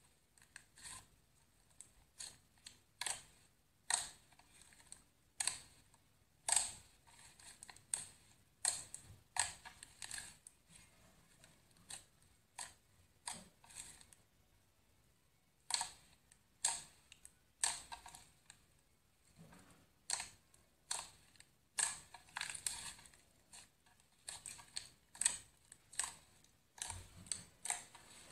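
Fluffy slime being poked, pressed and stretched by hand, making a string of short crisp pops and crackles, about one or two a second, with a brief pause about halfway through.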